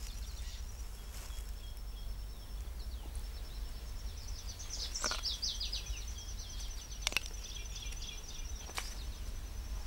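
Forest ambience: a steady high-pitched insect trill, with a quick series of short bird chirps about halfway through and a few sharp clicks.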